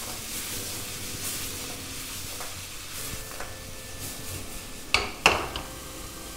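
Vegetables and sausages sizzling in a non-stick wok as they are stir-fried and tossed, with soy sauce just added. Two sharp knocks close together about five seconds in as the wok is shaken.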